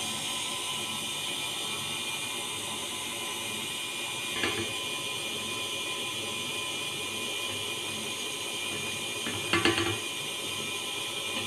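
KitchenAid Artisan stand mixer running steadily, its motor giving a whine as it mixes cake batter. A sharp knock comes about four and a half seconds in, and a quick run of knocks near ten seconds.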